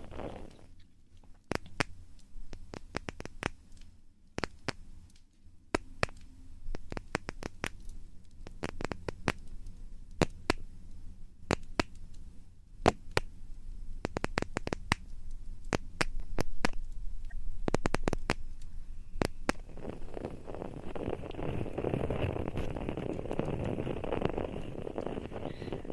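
ASMR ear-cleaning and ear-massage sounds made close to a microphone. First comes a run of sharp, irregular clicks and scratches. About three-quarters of the way through, this changes to a dense, continuous rubbing.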